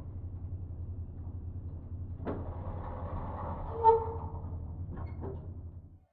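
Elevator car running with a steady low hum. A clunk comes about two seconds in, then a single ding of its chime near the middle, then two clicks. The hum cuts off abruptly near the end.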